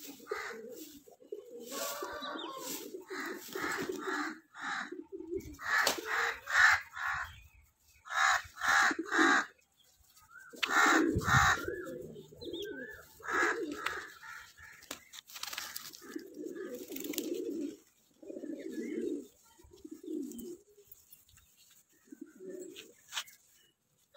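Fantail pigeons cooing: repeated low coos throughout, with louder, higher-pitched bird calls breaking in several times.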